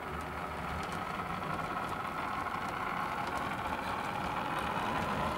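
Model railway Class 143 two-car unit running over new points and a double slip: a steady motor hum and wheel rumble, slowly getting a little louder, with faint ticks from the wheels crossing the rail joints.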